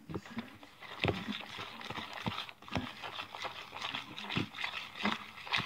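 A metal spoon stirring slime in a plastic bowl, knocking and clicking against the bowl in short, irregular strokes about every half second.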